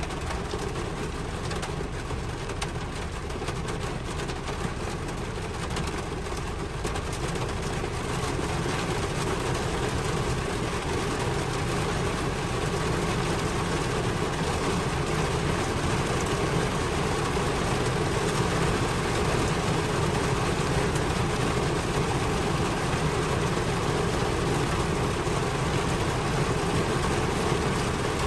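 Steady rain noise, an even rushing hiss with a low rumble beneath, slowly growing louder over the first part and then holding level.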